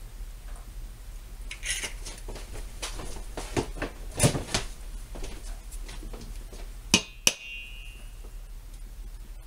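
Eggs being cracked on the rim of a stainless steel mixing bowl: scattered small knocks, then two sharp taps close together about two thirds of the way in, the second leaving the metal bowl ringing briefly.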